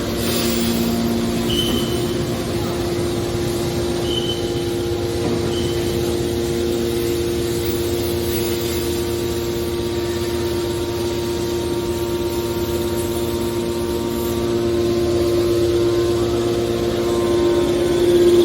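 Hydraulic scrap-metal baler running, its pump and motor giving a steady whining hum that grows louder toward the end.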